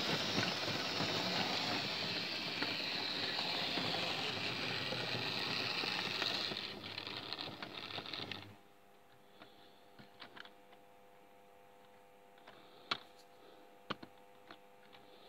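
Hornby Terrier model tank engine running along the track with its vans, a steady whirring rattle of motor and wheels on rail that fades and stops a little past halfway. Then it is much quieter: a faint hum and a few light clicks.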